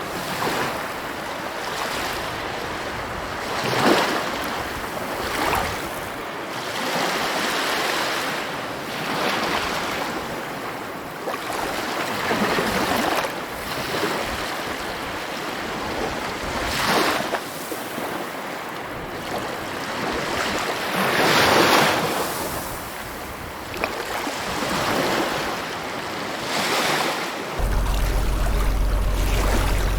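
Sea waves washing in, a continuous surf hiss that swells and falls back every few seconds as each wave breaks. Near the end a steady low rumble comes in suddenly under the waves.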